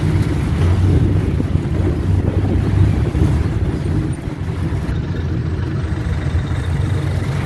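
Motor vehicle engine running with a steady low drone, heard from the open passenger seat while riding.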